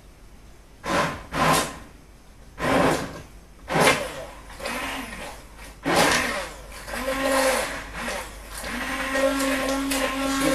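Electric blender switched on in several short pulses, then run steadily with a humming whine from about nine seconds in, puréeing cauliflower cooked in milk into a creamy sauce.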